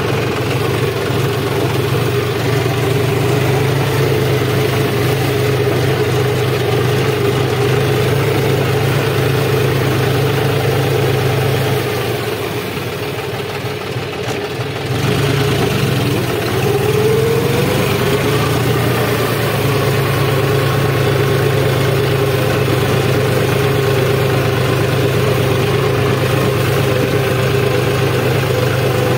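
John Deere 5405 tractor's three-cylinder diesel engine running steadily as the tractor drives over paddy stubble. It eases off for a few seconds about twelve seconds in, then picks up again with a slight rise in pitch.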